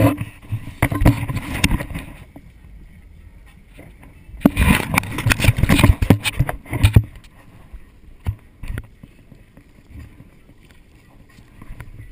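A boat hull banging over choppy waves, with splashing spray and wind buffeting the microphone. It comes in two rough spells of knocks and splashes, one near the start and one from about four and a half to seven seconds in, with quieter water noise between.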